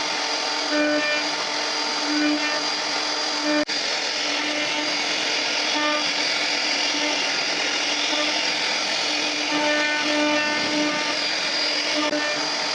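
CNC router spindle running steadily and carving mahogany: a constant pitched hum over dense cutting noise that pulses slightly as the bit works through the wood. The sound breaks off for an instant about four seconds in.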